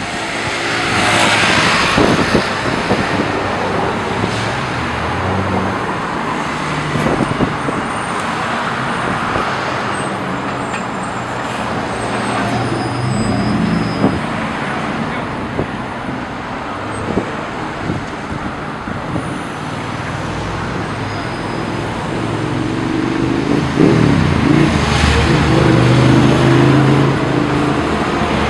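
Steady city street traffic at an intersection: cars driving past, with a passing city bus's engine growing louder and closer during the last few seconds.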